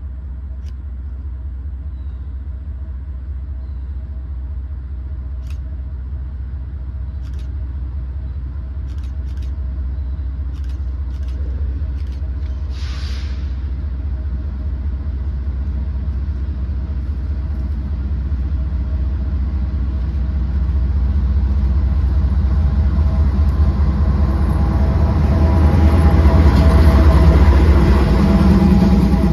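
Norfolk Southern diesel freight locomotives approaching and passing close, a low engine rumble growing steadily louder and loudest near the end as the lead units go by.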